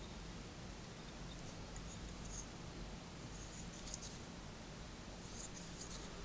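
Faint scratchy ticking of tying thread being wrapped around the hook with a bobbin, in three short clusters over a low steady hum.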